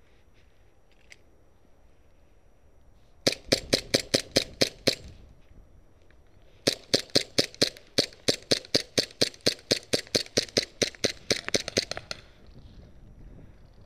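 Gas blowback airsoft gun firing rapid shots, about five or six a second: a string of about ten shots, then after a short pause a longer string of about thirty.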